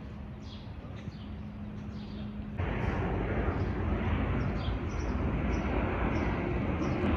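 Small birds chirping repeatedly over a steady low hum. About two and a half seconds in, a loud, steady low rushing rumble of a jet airliner sets in abruptly, with the birds still chirping over it.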